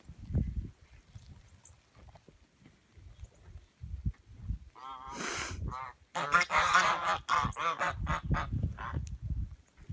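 Domestic geese honking. A few calls come about five seconds in, then a quick run of repeated honks.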